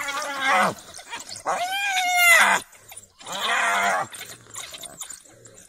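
Three loud, drawn-out squealing calls, each rising and falling in pitch, from animals in a fight between spotted hyenas and African wild dogs.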